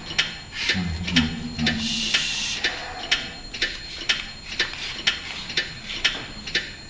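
Ticking clock sound effect, a steady tick about twice a second. A brief low murmur comes under it about a second in.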